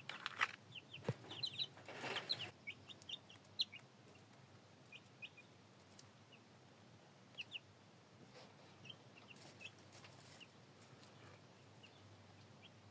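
Chicks peeping: faint, short, high chirps, scattered and at times in quick little runs, with a few soft rustles.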